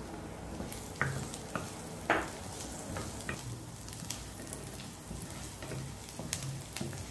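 Chopped garlic sizzling in hot oil in a nonstick pan, stirred with a wooden spatula that clicks and taps against the pan; the sharpest knock comes about two seconds in.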